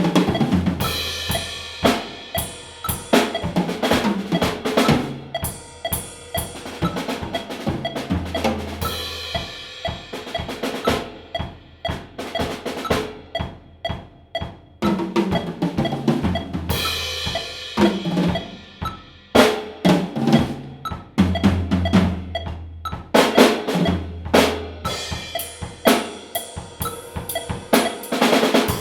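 Drum kit played solo: fast snare and tom fills with bass drum and rimshots, cymbal crashes ringing out in a few places.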